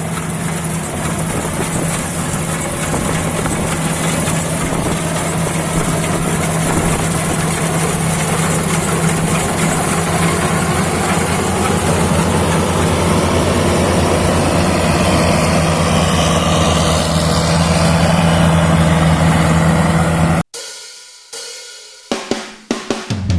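Small combine harvester's engine and threshing machinery running steadily with a constant deep hum. About 20 seconds in, it cuts off abruptly and a few sharp percussive hits follow.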